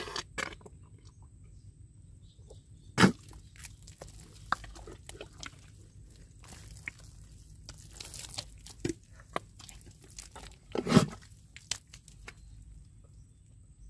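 Wet mud squelching and sucking as an arm digs into a crab burrow in a tidal mudflat and scoops out handfuls of mud: irregular wet pops and slaps, with two louder sucks, about three seconds in and again near the end.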